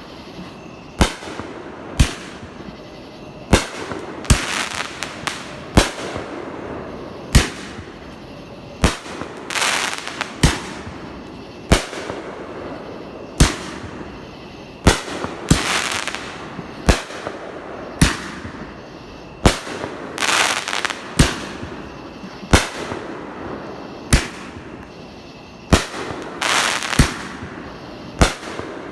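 Fireworks going off in a steady string of sharp bangs, about one every second and a half to two seconds. Several longer hissing bursts are mixed in between the bangs.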